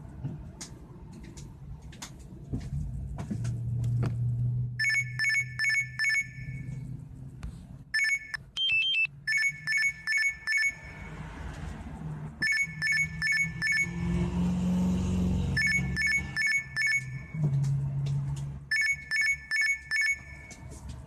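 LG K7 smartphone playing an electronic ringing tone through its speaker, starting about five seconds in: rapid trills of short two-note beeps, about four a second, in groups that repeat every couple of seconds like a telephone's ring. A low hum runs under it.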